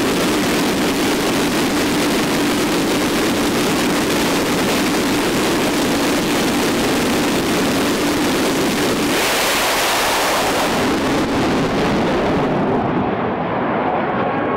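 Jet-powered drag car's turbine engine running on the starting line with a steady drone. About nine seconds in it surges to a much louder, harsher blast as the car goes to full power and launches, and the sound turns duller near the end.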